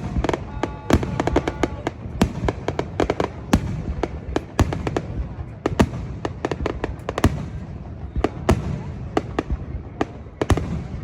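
Fireworks going off: a dense, irregular run of sharp bangs and crackles, several a second, over a steady low rumble.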